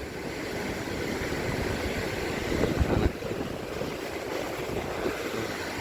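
Wind buffeting the microphone on an open beach, over a steady wash of surf, with a stronger gust about three seconds in.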